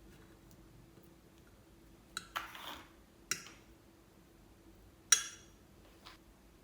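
Small hard objects clicking and clinking as they are handled: a click, then another click followed by a short scraping rustle, a third click, a loud ringing clink about five seconds in, and a faint tap near the end.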